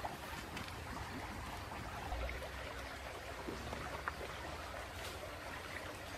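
Wood campfire crackling, with a few sharp pops scattered through a steady background hiss.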